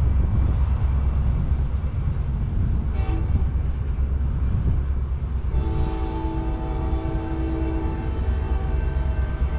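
A diesel passenger train locomotive rumbling low and steady. It gives a short horn toot about three seconds in, then a long horn blast lasting a couple of seconds past the middle.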